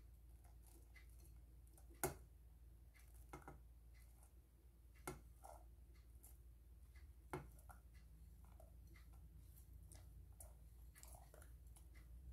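Faint scraping and light ticking of a spatula and ceramic dish as crumbly biscuit base is pushed out of the dish into a steel cake ring. There are three sharper clicks, about two, five and seven seconds in, over a low hum.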